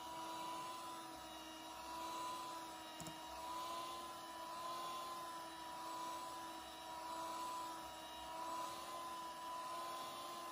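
Electric mixer running at speed, its twin beaters whipping a thick cream: a steady motor whine that swells and eases gently every second or two.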